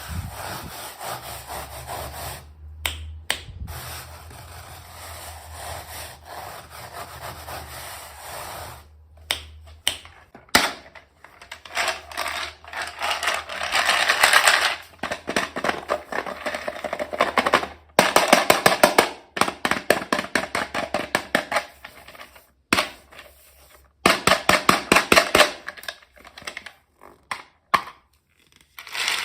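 Hands opening and handling packaging: rubbing and scraping, with runs of rapid crackling, cut into short clips with abrupt gaps between them.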